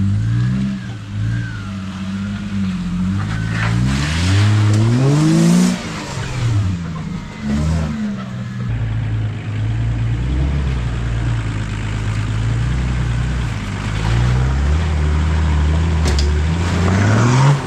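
Four-wheel-drive wagon engines, a Toyota LandCruiser 80 Series and a Nissan GQ Patrol, working off-road up a slippery rutted clay track: the revs rise in a few surges in the first half, then settle into a steadier low engine drone as the second vehicle comes through.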